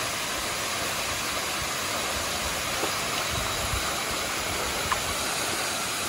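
Steady rush of a waterfall pouring into a rock pool, an even sound of falling water with no break.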